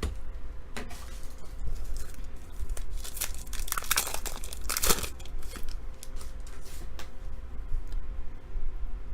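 A trading card pack's foil wrapper being torn open and crinkled, with the loudest tearing and rustling about four to five seconds in.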